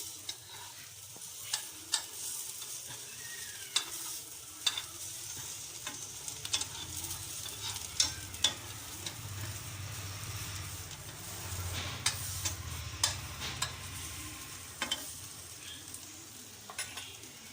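Egg omelette with adhatoda leaves, cumin and pepper sizzling in an oiled pan as the added water cooks off, with sharp taps of a utensil against the pan every second or two.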